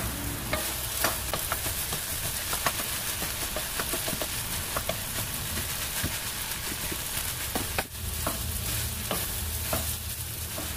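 Pork and vegetable fried rice sizzling in a nonstick pan as a wooden spatula stirs and tosses it, with many scattered light clicks and taps of the spatula against the pan over a steady hiss.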